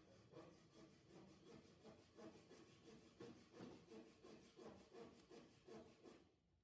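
Faint rhythmic rubbing or scraping strokes, about three a second, like hand filing or sanding; they stop shortly before the end.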